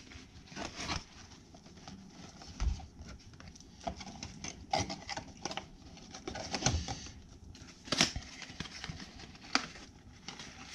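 Small cardboard product boxes being handled and set down on a table: scattered taps, knocks and rustling, with no steady sound.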